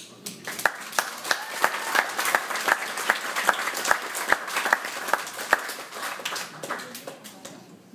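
A roomful of guests applauding. One person's hand claps, close and loud, come about three a second over the general clapping, and the applause dies away near the end.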